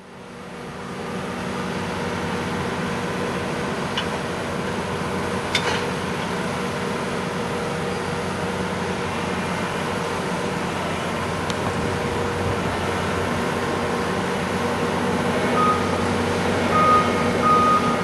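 Railway ballast regulator's diesel engine running steadily, with a couple of sharp metallic clicks in the first half. Near the end its warning alarm gives about four short, high beeps.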